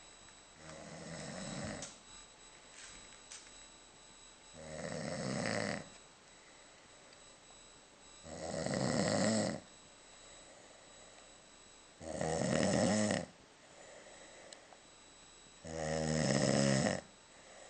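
A sleeping person snoring: five loud, rattling snores, each just over a second long, coming about every three and a half to four seconds with quieter breathing between them.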